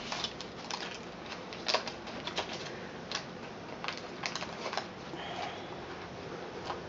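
Faint scattered light clicks and rustling from rubber-gloved hands wiping a wooden soap mold with a paper towel and pressing its loose masking tape back down.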